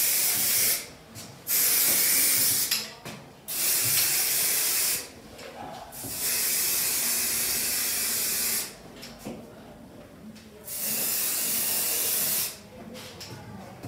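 Aerosol spray-paint can spraying onto tiles in about five bursts of hiss, each one to two and a half seconds long, with short pauses between them.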